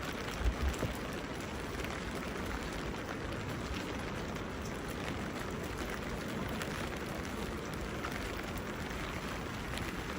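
Steady rain falling, with single drops ticking on surfaces. A brief low thump comes about half a second in.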